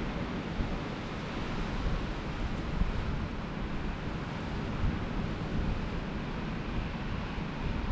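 Blizzard wind blowing steadily and gusting, buffeting the microphone with a low rumble.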